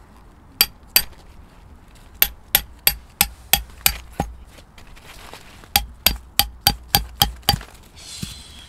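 A hammer driving a tent peg into the ground: sixteen sharp, ringing blows. There are two single blows, then a run of seven at about three a second, a short pause, and another run of seven.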